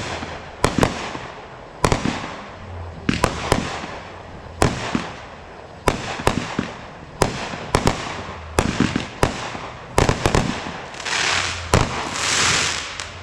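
Fireworks going off in a steady barrage: sharp bangs about once a second, some in quick doubles, each with a short echoing tail. A longer hissing stretch comes near the end.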